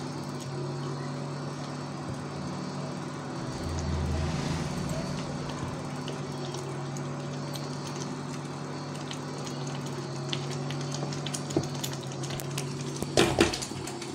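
A wooden spatula stirs crumbly ground chickpea mixture into hot sugar syrup in a steel pan, making wet stirring and bubbling sounds, over the steady hum of an induction cooktop. A few knocks of the spatula against the pan come near the end.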